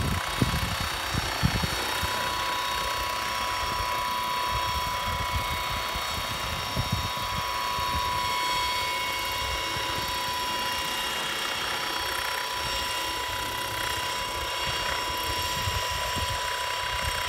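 Hydrogen fuel-cell powered unmanned helicopter hovering: its electric drive gives a steady whine of several held high tones, the main one dipping slightly in pitch about six seconds in, over gusty low buffeting from the rotors.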